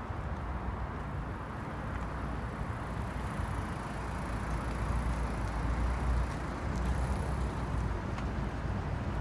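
Steady street traffic noise, a low rumble that swells a little about five to six seconds in.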